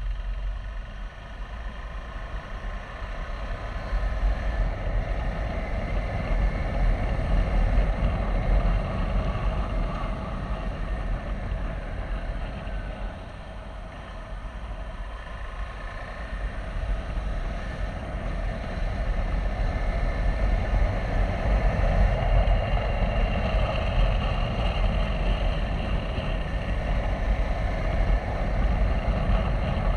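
KTM 390 Adventure's single-cylinder engine running under way, with wind rumbling on the microphone as the bike gathers speed. The sound builds over the first several seconds, eases around the middle, then builds again.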